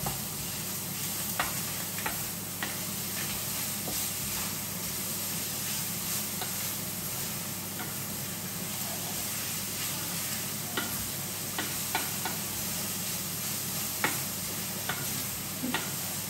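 Minced pork and pounded chili paste sizzling steadily as they are stir-fried in a frying pan. The spatula scrapes and clicks against the pan every so often, in small clusters near the start and again in the second half.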